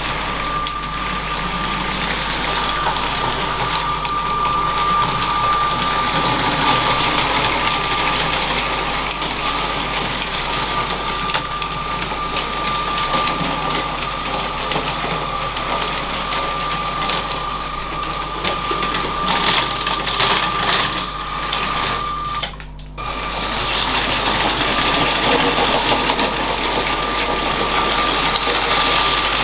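LEGO train's small electric motor running with a steady whine, its wheels rattling along plastic track with clicks now and then. The sound drops out briefly about three-quarters of the way through.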